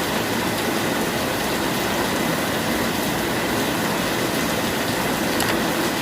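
Steady rain falling, an even unbroken hiss with no changes in level.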